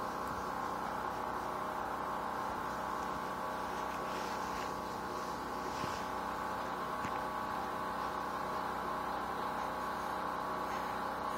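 A steady hum made of several fixed tones, with a few faint soft noises over it about four to six seconds in.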